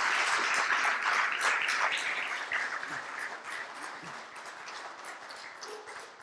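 Audience applauding, many hands clapping, loud at first and gradually dying away over the last few seconds.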